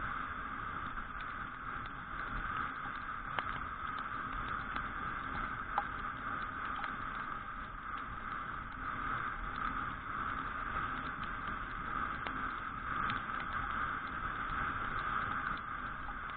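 Steady riding noise of a Suzuki Address V125G scooter on a wet road, picked up by a camera mounted on it: a constant hiss of wind and tyres, with a few light taps, likely raindrops hitting the camera.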